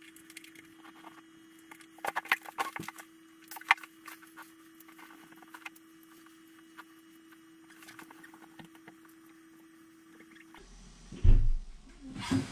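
Scattered small clicks and scrapes of handling over a faint steady hum, with a heavy thump near the end.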